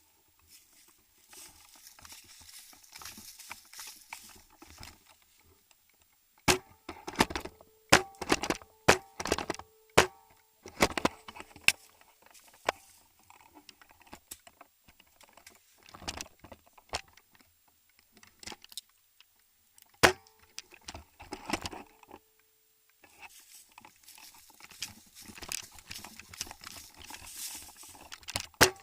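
Airsoft guns firing single shots: a string of sharp cracks at irregular spacing, roughly a second or less apart, some with a faint hum under them. Soft rustling comes before and after the shots.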